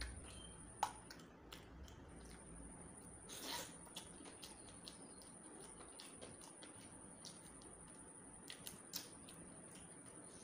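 Faint wet eating sounds: a hand working rice and chicken curry on a plate and mouth chewing, heard as scattered soft clicks and squelches, with a louder rustling smear about three and a half seconds in. A faint steady high whine runs underneath.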